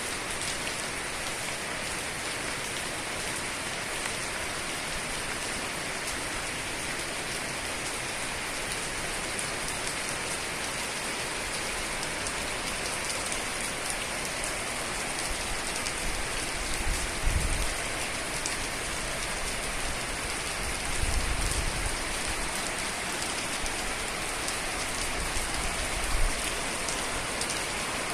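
Heavy rain falling steadily, a dense even hiss of drops hitting surfaces. A few brief low rumbles break in about halfway through and again near the end.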